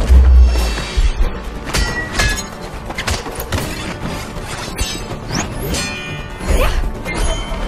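Action-film fight soundtrack: music under a quick string of hit and impact effects, with a heavy low thud at the very start as the loudest event.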